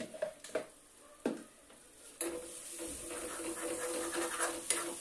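A few light knocks, then about two seconds in a steady sizzle starts suddenly as curry masala fries in a steel kadai, with a metal spoon stirring and scraping against the pan.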